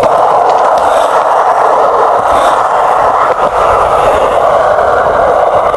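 Skateboard rolling on bare Hello ABEC 7 skate bearings with no wheels fitted, the steel bearings running directly over concrete: a loud, steady rolling grind.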